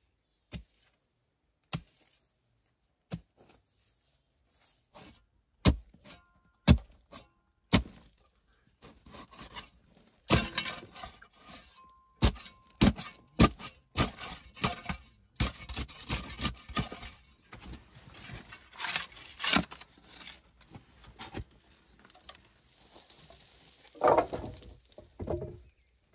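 Sharp knocks of wood being worked with hand tools: single strikes about a second apart at first, then a busier stretch of knocking, clinking and scraping, with a rougher rasping sound near the end.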